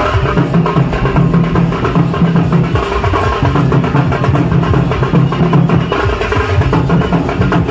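Loud music dominated by fast, dense drumming with a heavy low beat.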